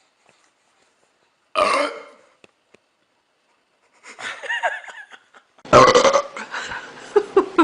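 A person burping loudly: a short burp about a second and a half in, and a longer, deeper one near six seconds. Short voice sounds come between the burps and, in quick repeated pulses, after the second one.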